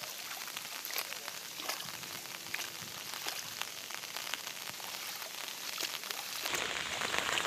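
Rain falling on standing floodwater: a steady patter of many small drops splashing on the water surface. It grows louder and fuller near the end.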